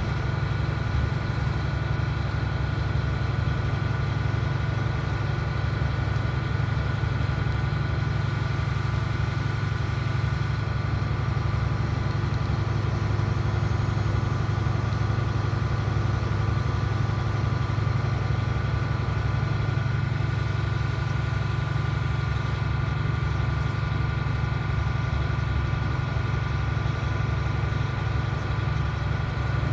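Steady low drone and rumble of a DAF SB4000 city bus's diesel engine with road noise, heard from inside the passenger cabin. It carries a few steady hum tones above the rumble and holds an even level throughout, with no revving or gear changes.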